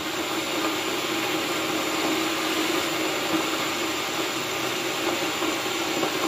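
Kitchen range hood's extractor fan running: a steady rush of air with a constant low hum.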